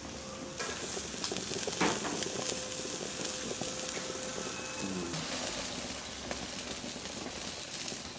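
Chicken pieces sizzling on a barbecue grill at high heat: a steady crackling hiss, with one sharper crack about two seconds in.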